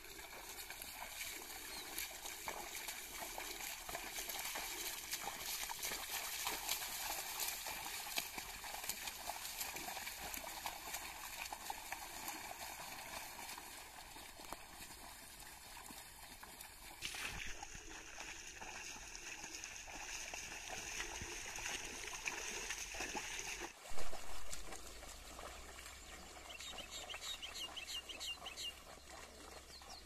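A pair of bullocks and their plough sloshing through a flooded paddy field, with splashing and trickling water and many small splashes. A short loud bump comes about 24 seconds in.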